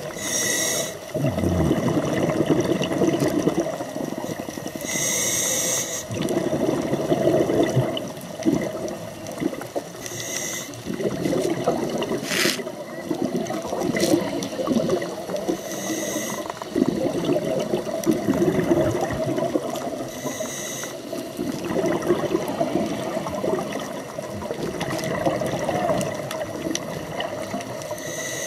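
Scuba regulator breathing recorded underwater. A short hiss of inhalation comes about every five seconds, with the rumbling gurgle of exhaled bubbles in between. A couple of sharp clicks fall near the middle.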